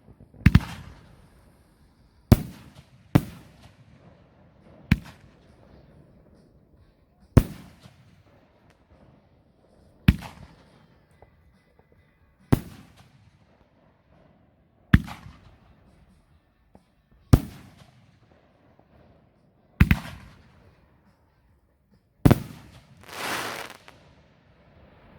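Fireworks going off in a steady series of sharp bangs, about one every two and a half seconds, each echoing away. Near the end one bang is followed by a second-long hissing crackle.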